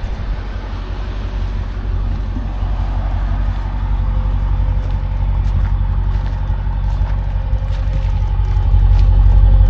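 Mercedes-AMG S63's V8 engine and road noise while driving: a continuous low rumble that builds gradually and is loudest near the end.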